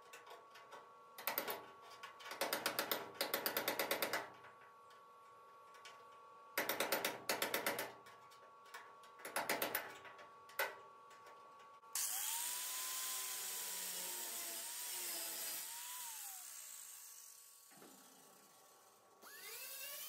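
Power tools working in a shop: several short bursts of rapid mechanical clicking in the first ten seconds, then a high-speed tool running with a steady hiss and a wavering pitch for about five seconds, starting again near the end.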